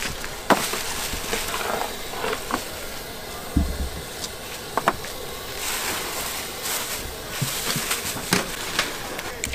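Kitchen clatter of soup-making: scattered sharp clinks and knocks of utensils and dishes over a steady background hiss, with one dull thump a little past the middle.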